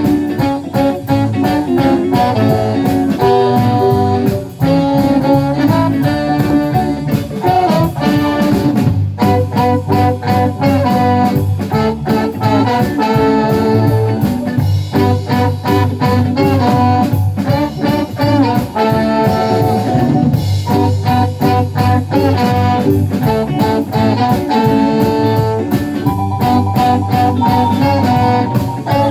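A live band playing an upbeat jazz-pop number, with horns and guitar over bass and drums.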